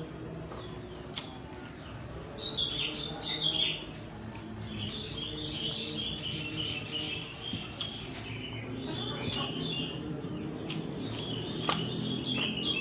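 Small birds chirping on and off throughout, with a few sharp, crisp clicks of chewing and a steady low hum underneath.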